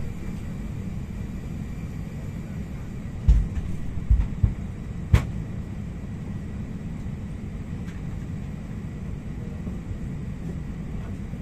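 Steady low rumble of a parked Airbus A320's cabin at the gate, with a few dull thumps and a sharper knock a few seconds in.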